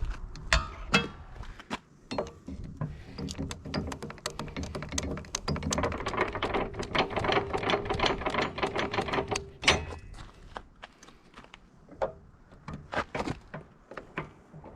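Grease gun being worked on the backhoe's swing-pivot grease fittings: a run of metallic clicks and clacks, with a denser stretch of rattling in the middle.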